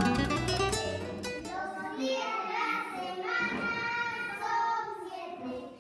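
Strummed guitar music for the first second and a half or so, then young children singing together in small high voices.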